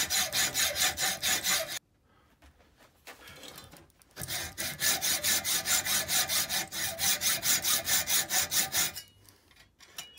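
Hand hacksaw cutting a metal bar clamped in a vise, in quick, even back-and-forth strokes, about four a second. The sawing pauses for about two seconds shortly after the start, runs again, and stops near the end, leaving a few faint clicks.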